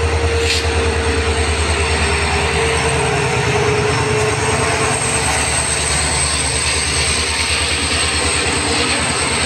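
WDP4B diesel-electric locomotive passing close at speed. Its engine gives a loud, fast, even low pulsing with a steady high whine, and the locomotive is followed by its coaches.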